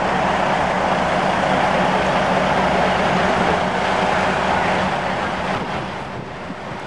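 Heavy diesel engine running steadily with a low, even drone, easing off somewhat near the end.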